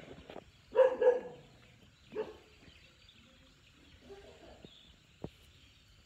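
A dog barking: two quick loud barks about a second in, a single bark about a second later, and a fainter one a few seconds in.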